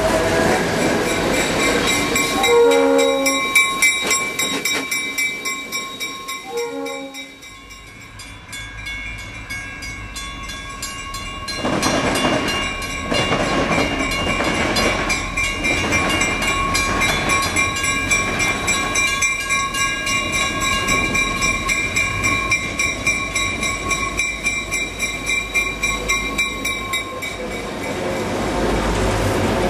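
EMD GP38-2 diesel freight locomotives: two short horn blasts about four seconds apart, then a warning bell ringing steadily while the locomotives' diesel engines rumble closer and pass alongside.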